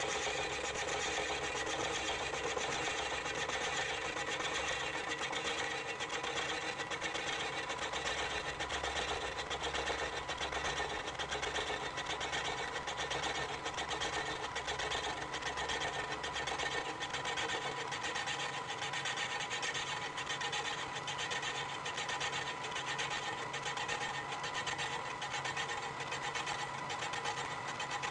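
Milling machine fly cutter taking a facing cut across a cast-iron drill press base: a steady, fast-repeating mechanical cutting sound, played back at eight times speed.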